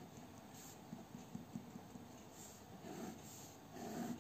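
Faint scratching of a ballpoint pen on notebook paper, a series of short strokes as the lines and hatch marks of a diagram are drawn.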